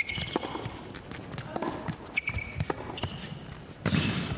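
Tennis rally: racquets striking the ball, ball bounces and shoe squeaks, with a louder burst of sound near the end.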